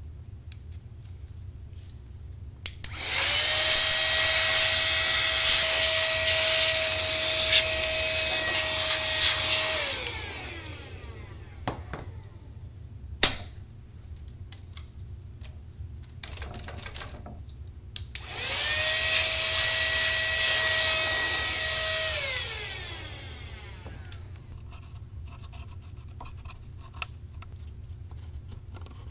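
Small handheld electric air duster's motor run twice, each time spinning up to a steady high whine and winding down with a falling pitch; the first run lasts about seven seconds, the second about four. A single sharp click falls between the two runs.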